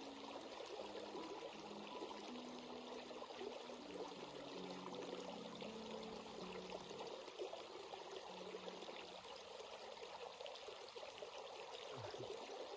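A stream running over rocks and pebbles, a steady rushing, trickling flow of water.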